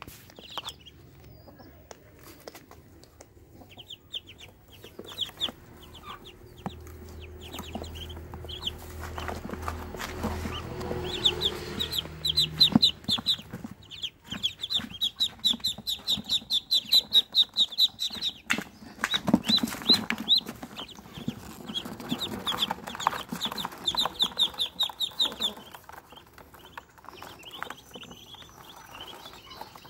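Young Muscovy ducklings peeping in fast runs of high, short calls, busiest and loudest through the middle of the clip and thinning out near the end.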